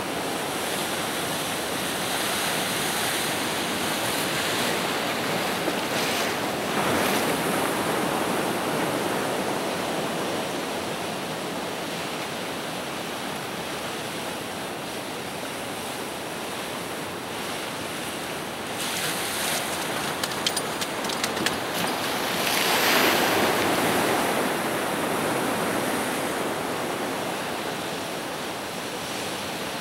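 Ocean surf breaking and washing over rocks, a steady rush that swells louder twice as waves break. A brief run of light clicks comes about two-thirds of the way in.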